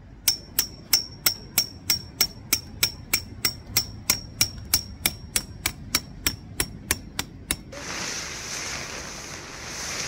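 A hammer driving a metal tent peg, struck about three times a second with a high metallic ring on each blow, stopping about three quarters of the way through. Steady wind noise follows.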